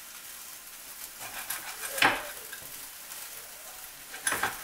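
Orange pieces sizzling steadily in a hot electric skillet. Two sharp knocks, about two seconds in and near the end, come from a knife cutting oranges on a cutting board.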